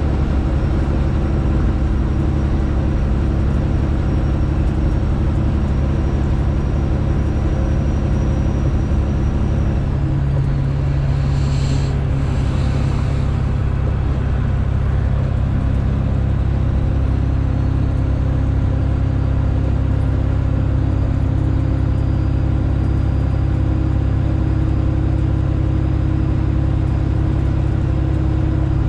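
Straight-piped Detroit Diesel engine of a Freightliner Classic XL running steadily under load, loud and droning. Its note changes about a third of the way in and again a little later. Two short hissing bursts come just after the first change.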